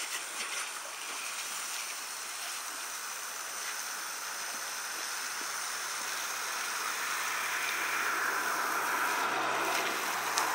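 Garden hose water spraying and splattering onto wet gravel, a steady hiss that grows louder through the second half.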